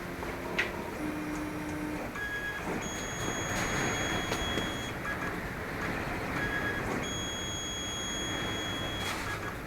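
CNC plasma table's gantry stepper motors whining as the machine traces the bracket path in a dry test run: short steady tones that jump to a new pitch every second or two as the moves change.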